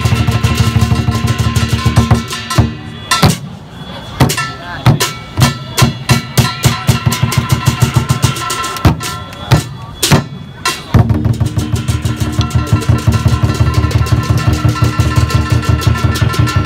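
Lion-dance drumming on a large Chinese drum with cymbals: a fast, dense roll, breaking after about two seconds into slower, heavier single strikes with gaps, then back into a fast roll about eleven seconds in. Cymbals clash and ring along with the drum.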